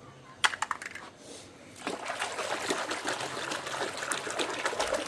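A few light clicks and knocks about half a second in, then water trickling and running steadily from about two seconds in.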